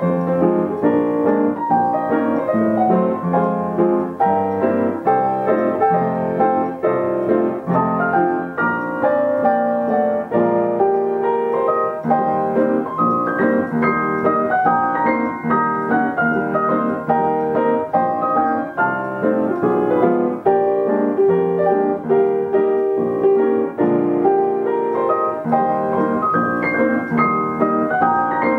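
Yamaha upright piano playing a steady, unbroken stream of melody notes and chords.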